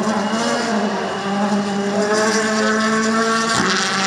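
Rally car engine at high revs as the car speeds past on the gravel stage, its pitch rising and falling with the throttle and holding high, with a brief break about three and a half seconds in.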